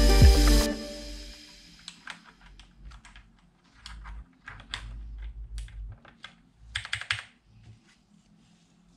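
Music fading out, then keystrokes clicking irregularly on the freshly cleaned and reassembled Razer BlackWidow Ultimate mechanical keyboard.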